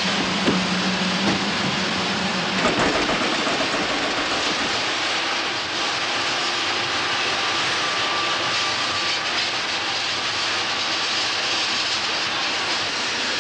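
Paris métro train running fast through a tunnel: a continuous loud rush of rail and air noise. A low hum under it stops about three seconds in, with a brief clatter at that moment.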